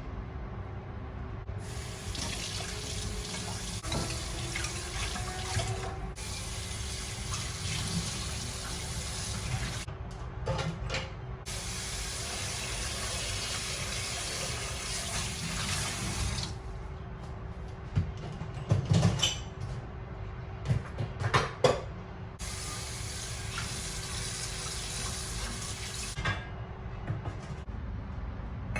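Water running from a tap into a sink, turned on and off in several stretches of a few seconds each, with a few sharp knocks and clinks in a pause between them.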